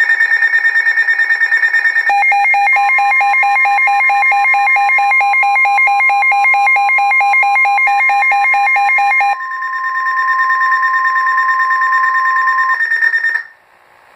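NOAA Weather Radio warning alarm: a steady single tone sets in about three seconds in and holds for about ten seconds. Under it runs a loud electronic alert that pulses, turns into a rapid warble about two seconds in, and settles into a steady high tone near nine seconds, cutting off about a second before the end. The alarm heralds a severe thunderstorm warning.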